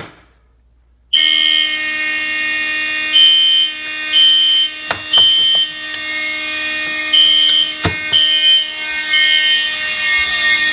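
A click, then about a second later a fire alarm system goes into alarm. Several horns sound together: a continuous, many-toned buzzing dominated by a Simplex 4051 electromechanical horn, with a SpectraLert Classic electronic horn over it beeping in temporal code 3, three beeps, a pause, three beeps. A couple of sharp clicks fall in the middle.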